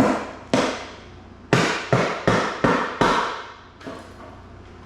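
Impact wrench hammering in about seven short trigger bursts over three seconds, breaking loose the valve cover bolts on a Ford 302 V8.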